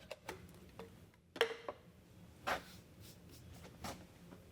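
Metal espresso tamper and portafilter being handled while tamping ground coffee: a few separate clinks and knocks. The loudest comes about a second and a half in and rings briefly.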